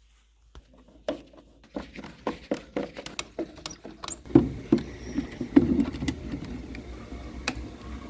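A run of sharp clicks and knocks, about three a second, then heavier knocks over a steady low rumble from about four seconds in: hand work on a gas furnace as its vent motor and collector box are being swapped.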